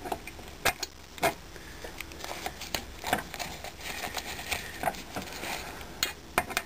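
Scattered light metallic clicks and clinks as tools and parts are handled on the metal-built IBM 5251 keyboard while its case screws are being worked on. A few sharper knocks come about a second in and again near the end.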